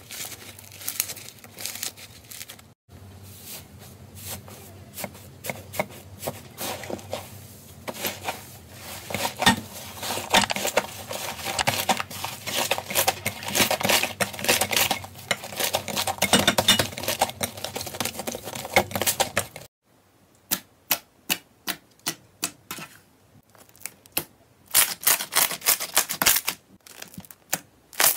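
Slime being squeezed and kneaded by hand: crackling, squelching and popping clicks, dense in long stretches and broken into separate sharp pops for a few seconds near the end.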